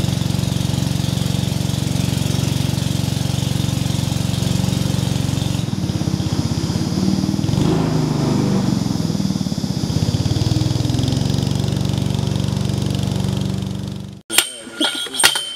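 Small boat's motor running steadily under way, its note wavering somewhat in the middle; it cuts off abruptly near the end, followed by a few sharp metallic clinks.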